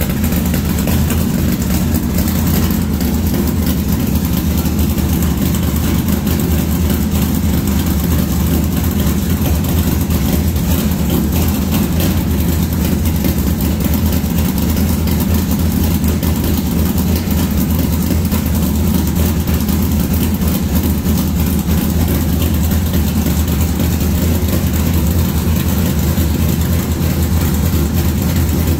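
Dodge Dart's stroker engine idling steadily through its new straight-pipe race exhaust, super loud.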